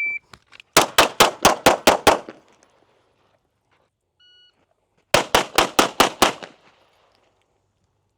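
A shot timer's start beep, then a rapid string of about seven pistol shots. A fainter beep follows, then a second rapid string of about six shots.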